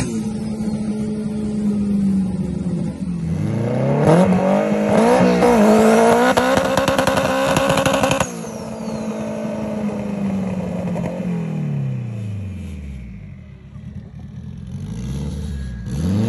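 Car engine under hard acceleration, heard from inside the cabin: the revs sag, then climb for several seconds with a short dip at a gear change. The sound cuts abruptly to a car engine heard from the roadside, revving up and down several times.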